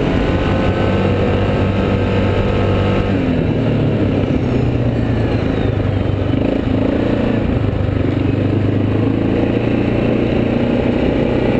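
Engine of an off-road vehicle running under way on a dirt road, heard close up from the machine it is mounted on, with wind rushing past. The engine note drops and shifts about three seconds in as the throttle changes, then holds steady.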